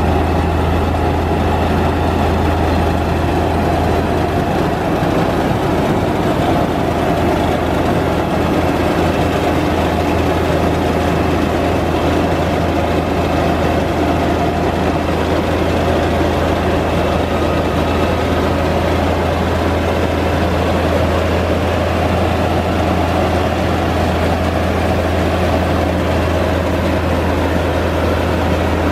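Truck-mounted rice mill running steadily while milling rice: an unbroken loud machine drone with a strong low hum.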